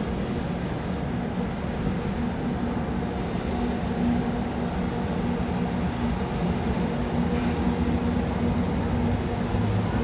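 A freight train hauled by two EF64 electric locomotives running slowly into the station. Its steady low hum and the rumble of wheels on rail grow slightly louder as it comes in, with a brief high-pitched squeak about seven seconds in.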